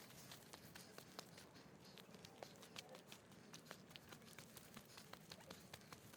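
Faint footsteps scuffing and crunching on a rough trail: many small, irregular clicks over a low hiss.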